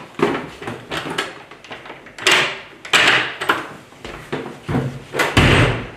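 The locks of an apartment front door are worked by hand: a run of sharp metal clicks and rattles as the bolts are turned and slid. Near the end there is a loud thump.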